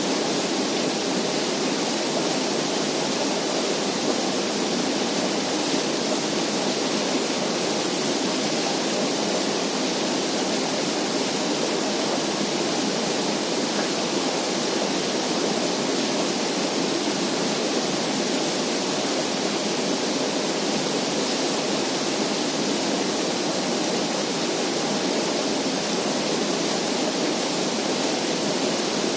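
Steady, unbroken rushing-water noise, even in level throughout.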